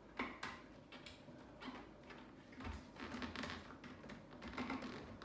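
Plastic face shield being worked onto a motorcycle helmet's side pivot mechanism: irregular light clicks, taps and plastic-on-plastic scraping, busier in the second half.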